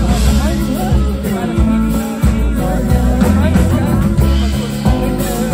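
Live band playing amplified through a PA: a woman singing over acoustic guitars, upright double bass and drums.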